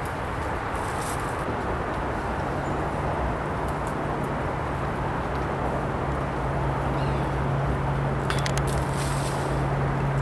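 Outdoor background noise with a steady low engine hum that starts about two seconds in and grows slightly louder, and a brief cluster of clicks about eight seconds in.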